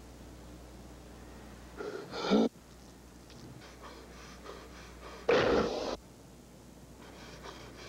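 A person's two loud, harsh gasping breaths, one about two seconds in and one about five seconds in, each cut off sharply.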